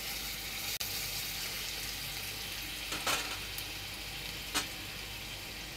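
Grated garlic sizzling in hot oil in a nonstick kadhai: a steady frying hiss as the tadka starts. Two short strokes of a silicone spatula stirring it come about three seconds in and again about a second and a half later.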